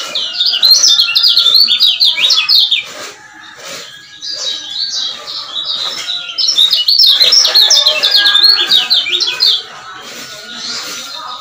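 Male lemon-bellied white-eye (kecial kuning) singing its 'ciak-ciak' chatter: two long runs of rapid, high, warbling notes, the second starting about five seconds in, with quieter chirps between them.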